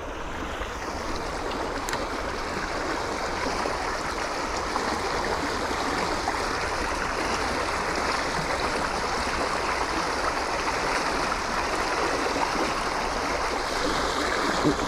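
Steady rush of flowing water, the current running through a small channel.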